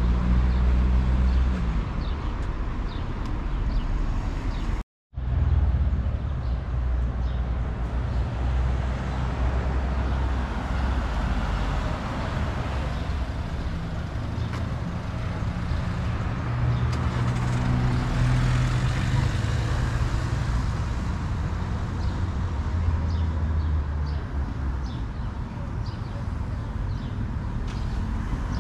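Steady running noise of a moving vehicle: a low motor hum that shifts slowly in pitch over a rumble. It drops to silence for a moment about five seconds in.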